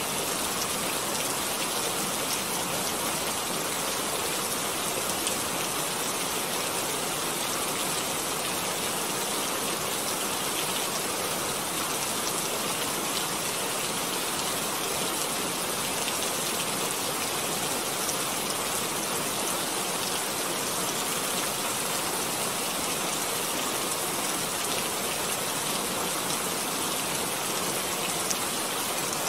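Steady, even hiss like falling rain, unchanging throughout.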